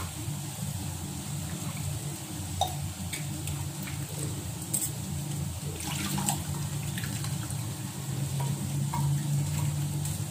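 Tamarind water being poured and rinsed from a small steel bowl into a steel pot of rasam, liquid splashing and dribbling, with a few light clicks of metal on metal. A steady low hum runs underneath.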